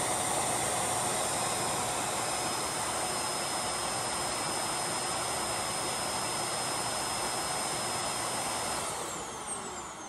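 Ecovacs T8 auto-empty station's suction motor running steadily, a rush of air with a high whine, then spinning down with a falling whine about nine seconds in. The emptying cycle fails to clear the matted pet hair clump from the bin, because the bin's two ports pull it from both sides at once.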